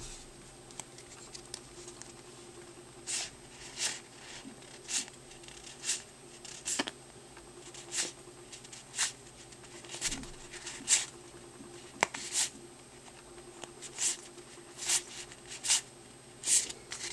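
Yu-Gi-Oh! trading cards being slid one by one from the front to the back of a held hand of cards: a short, soft card-on-card swish about once a second, starting about three seconds in.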